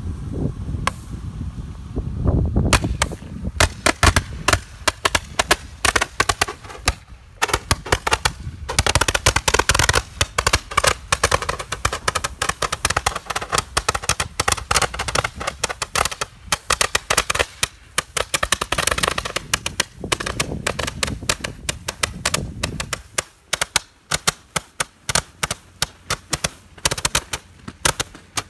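Two 140-shot Roman candles firing together, a rapid, irregular run of sharp pops, several a second, as each colored star launches.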